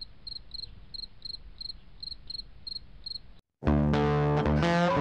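Crickets chirping steadily, about three chirps a second. After a brief silence about three and a half seconds in, loud guitar music cuts in and takes over.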